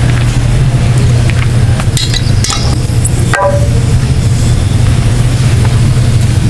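Steady low hum with a few short metallic clinks of iron weight plates on a leg-press sled, about two to three seconds in.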